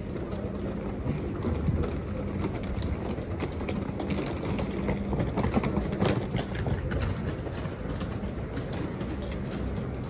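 Outdoor street ambience: a steady low engine hum under a mix of background noise, scattered clicks and faint voices.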